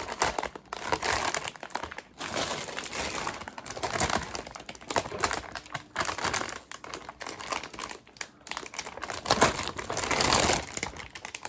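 Crinkly chip bags being handled and rustled, an irregular crackling that goes on and off, loudest about nine to eleven seconds in.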